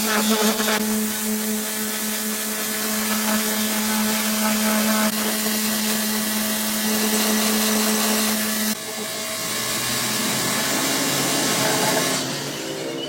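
Electric power tool with its motor running steadily at a constant hum. About nine seconds in, the tone drops lower and the sound gets quieter.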